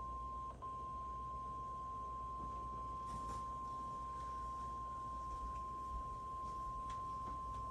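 NOAA Weather Radio 1050 Hz warning alarm tone sounding as one long, steady, high beep, with a brief dropout about half a second in. This is the alert tone sent during the required weekly test to trigger weather alert radios.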